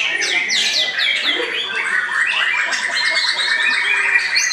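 White-rumped shama singing a long, unbroken run of quick down-slurred whistles and rapid rattling trills.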